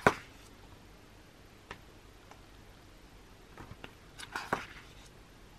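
Glossy photobook pages being turned and handled: a sharp paper flap right at the start, a few faint ticks, then a brief rustle of pages about four seconds in.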